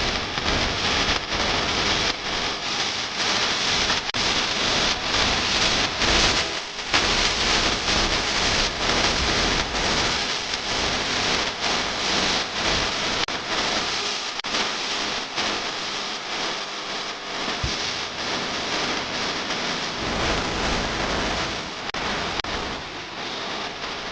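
A steady rushing hiss, strongest in the high range, with many small crackles through it and a slowly wavering level.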